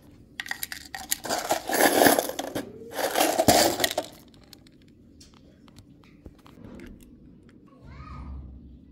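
Small metal sewing-machine parts, pins and needles rattling and clattering inside a clear plastic jar as it is handled, for about three and a half seconds. Near the end a sewing machine begins to run.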